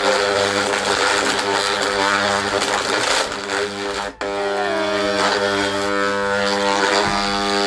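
Electric countertop blender motor running under a heavy load of sweets and chewing gum, a steady loud hum with a brief drop about four seconds in. The overloaded motor is overheating and starts to burn.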